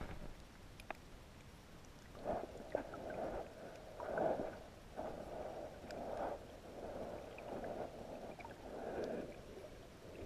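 Muffled water sound picked up by an underwater camera in shallow sea: irregular swishes of moving water, about one a second, with a few faint clicks.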